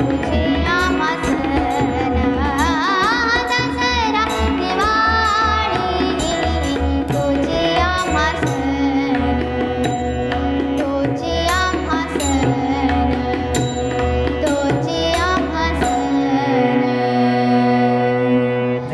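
A girl's voice singing a Marathi devotional abhang over harmonium, with a tabla keeping rhythm. The tabla stops about three seconds before the end, leaving a held harmonium chord with the voice, which breaks off sharply as the song ends.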